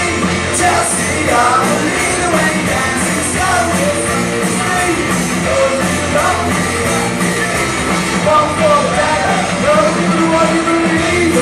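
Live rock band playing loudly through a PA, with a lead vocal sung over electric guitars, bass and drums.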